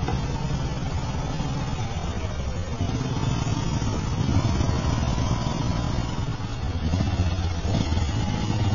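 A vehicle engine running at a steady idle, a low continuous hum.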